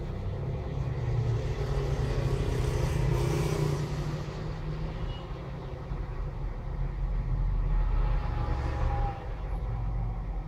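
Low background rumble with a noisy haze above it, swelling twice, about one to four seconds in and again around eight seconds in.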